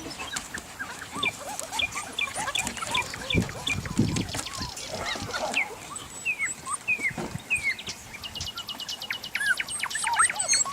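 Birds calling: many short, high calls sliding downward and overlapping one another, with a fast, even, high rattling trill in the last few seconds.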